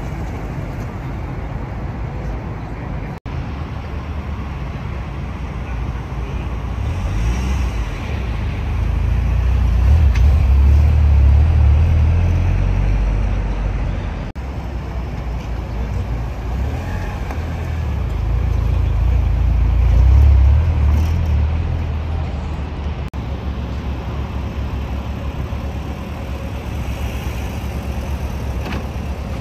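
Exhaust rumble of tuned Japanese sports cars: engines idling, with a deep exhaust note that swells and fades twice as cars drive off across the lot. The sound breaks off abruptly three times between shots.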